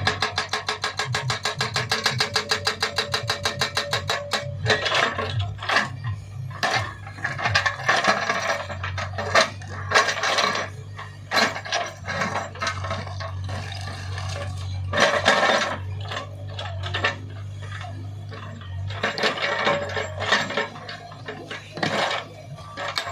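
JCB 3DX backhoe loader's hydraulic breaker hammering in a fast, even rhythm for about the first four seconds, then irregular metallic clanks and knocks, over the steady running of the machine's diesel engine.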